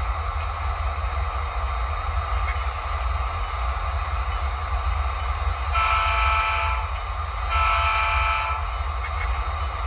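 Two horn blasts from a model locomotive's sound decoder, each about a second long and a moment apart, over a steady low hum and running noise. Two long blasts is the prototype railroad signal for a train about to move off.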